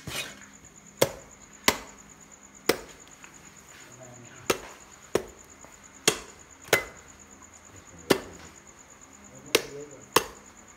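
Heavy meat cleaver chopping into a pig's head, blade striking through meat into bone: about eleven sharp, irregularly spaced blows, roughly a second apart.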